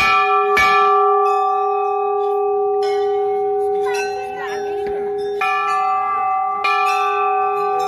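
A large brass temple bell struck about five times with its clapper, each stroke ringing on long and steady, with a gap of a few seconds between the first pair and the rest.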